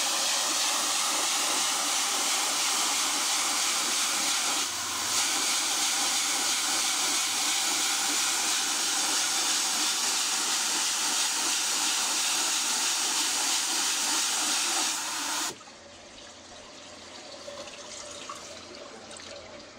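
Profidrum drum filter's spray bar jetting water onto the drum screen in a manual cleaning cycle, a loud steady hiss of spray. It shows the spray bar still works. It cuts off suddenly about fifteen seconds in, leaving a quiet trickle of water.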